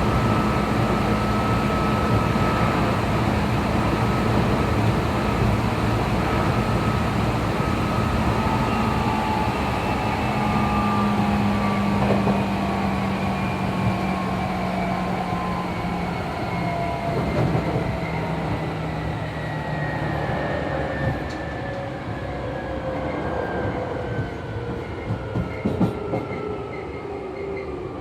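Hankyu 3300-series train slowing down: the whine of its Toyo TDK-831-A traction motors falls steadily in pitch over the rumble of the running gear, with a few clacks near the end. The motor tones of the two cars sit slightly out of step, because differently turned wheel diameters make their motors spin at different speeds.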